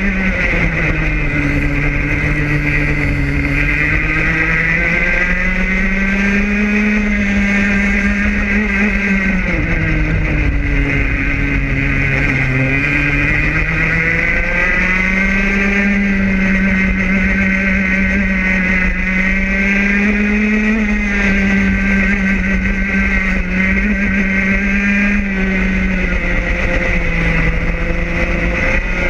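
Racing kart's two-stroke engine heard from onboard, running hard throughout. Its pitch drops as the kart slows for corners and climbs again as it accelerates down the straights.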